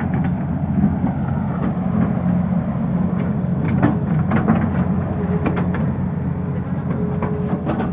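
Tata Hitachi excavator's diesel engine running steadily, with scattered sharp knocks.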